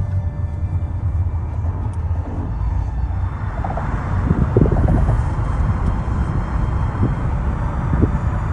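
Outdoor city ambience: a steady low rumble of traffic that fills out about three seconds in, with a few brief low bumps.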